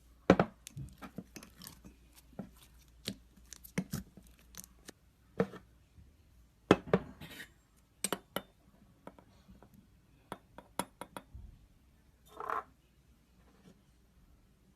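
Slime with boba beads being pressed and squished, giving irregular sharp pops and clicks as air pockets burst, with a longer soft squelch near the end.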